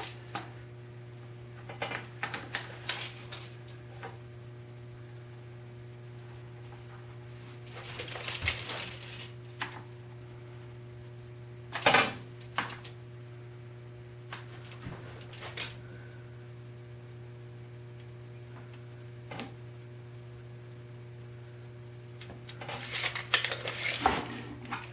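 Small clicks, taps and rustles of hand tools and material being handled on a workbench, with one sharper knock about halfway through and a busier patch of handling near the end, over a steady low electrical hum.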